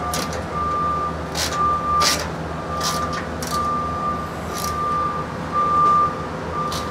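An electronic beeper sounding a steady tone about once a second, over a low steady hum, with scattered sharp clicks of a hand wrench on bolts.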